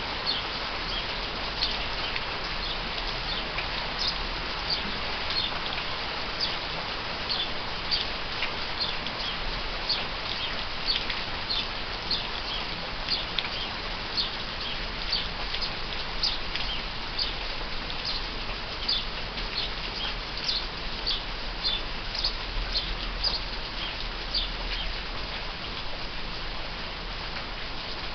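Steady rain falling, with house sparrows chirping over it in many short, quick chirps.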